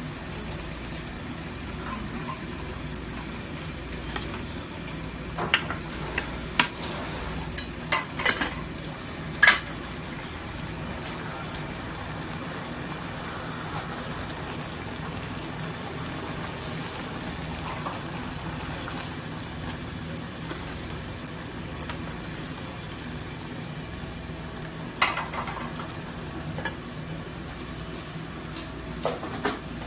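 Stew bubbling in aluminium pots over gas burners, a steady simmer with a low burner hum. Sharp metal clinks come in a cluster between about five and ten seconds in and again near the end.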